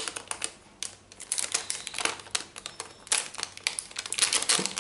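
Crinkling and crackling of a thin metallised anti-static bag being handled and opened by hand: a dense, irregular run of sharp little crackles.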